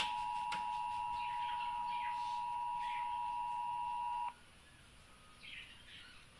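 Emergency Alert System attention signal: a steady two-tone beep that cuts off suddenly about four seconds in, the tone that opens a broadcast weather warning, here a flash flood warning. Faint bird chirps behind it.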